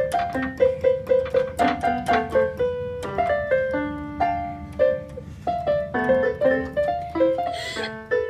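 Portable electronic keyboard played in a piano voice: a quick tune of separate notes and small chords, several notes a second.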